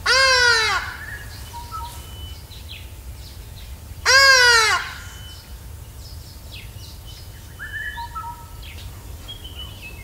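Hadeda ibis calling: two loud, piercing calls, each dropping in pitch and lasting under a second, one right at the start and one about four seconds in. Faint chirps of smaller birds sound in between.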